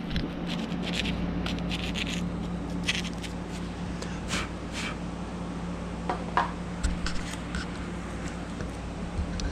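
A knife blade scraping and whittling in short, scattered strokes, cutting a small groove. A steady low hum runs underneath.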